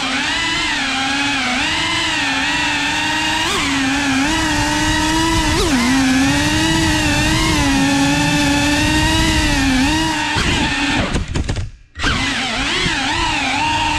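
FPV quadcopter's electric motors and propellers whining steadily, the pitch wavering up and down with throttle. Near the end the whine wobbles, cuts out for a moment, then spins straight back up.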